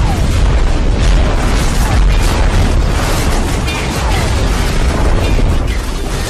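Loud explosion booms, one after another, with a deep rumble beneath, mixed with background music.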